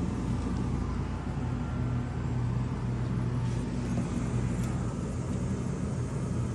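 Indoor unit of a central air-conditioning system (furnace with its blower) running steadily: a low, even hum with a rush of air.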